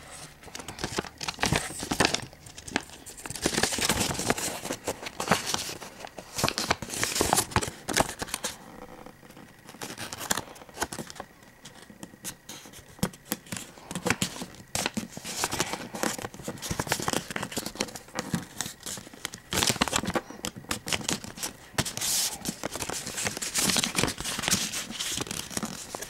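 A sheet of paper being folded and creased by hand into origami: irregular crinkling and rustling, with a few brief lulls.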